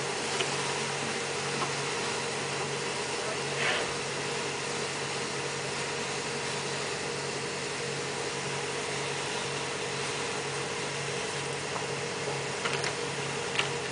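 Machinery running with a steady low hum and a slight regular pulsing, and a couple of faint clinks from work at the tank.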